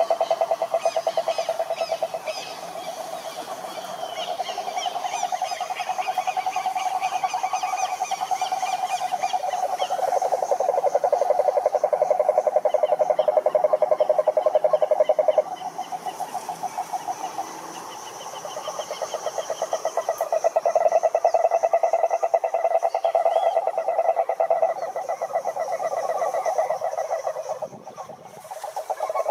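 A chorus of frogs calling: rapid, pulsed croaking overlapping without pause, with higher trilling calls above it. The chorus eases a little twice and dips briefly near the end.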